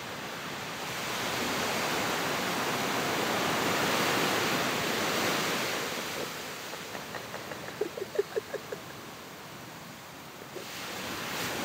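Small sea waves washing onto a beach: the surf swells up over a few seconds, falls away, and a second wave comes in near the end. About eight seconds in, a short run of about six quick repeated notes rises over the surf.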